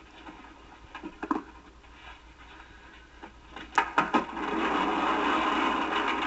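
Heavy wooden revolving bookcase being shoved: a few knocks, then a cluster of sharp thuds about four seconds in, followed by a steady grinding as the bookcase turns on its pivot.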